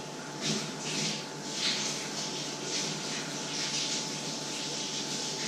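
Food cooking in a pan on an electric stove: a steady hiss with irregular louder sizzling surges every half second or so.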